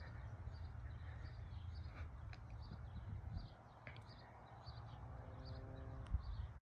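Faint open-air ambience: high, thin chirps repeating about twice a second over a low, steady rumble, with a few small clicks and a faint hum near the end. The sound cuts off abruptly just before the end.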